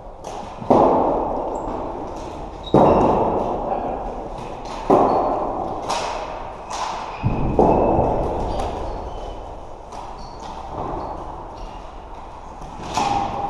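Floorball play echoing in a large sports hall: loud bangs with a long ringing decay, four in the first eight seconds and another near the end, among sharp clicks of sticks and ball and short high squeaks.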